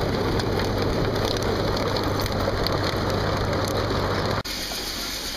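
Sawmill sawdust conveyor and its electric drive motor running, a steady hiss with a low hum. About four seconds in the sound cuts off abruptly to quieter machine noise.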